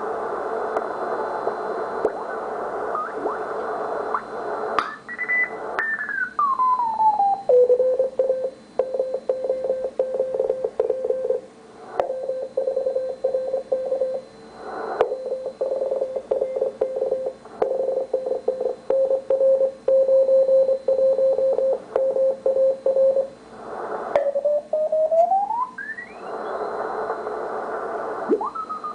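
Morse code received on a Ten-Tec T1380 QRP transceiver on the 80-metre band. Band hiss gives way to a station's tone that slides down in pitch as the receiver is tuned onto it. The tone settles into a steady keyed Morse signal for about fifteen seconds, then slides back up in pitch as tuning moves off it, and the hiss returns.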